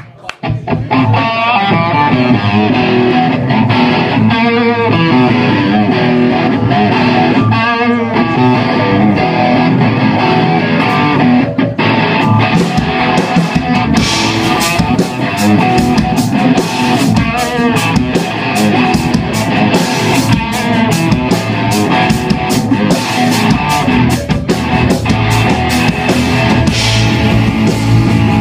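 Live rock band starting a song on electric guitars, bass and drum kit. The cymbals come in thickly about halfway through.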